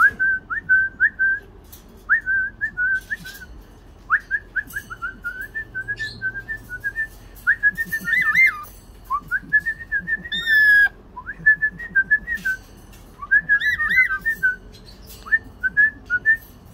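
Whistling in quick, warbling phrases of short clear notes at one pitch, with brief gaps between phrases and a couple of longer trilled runs.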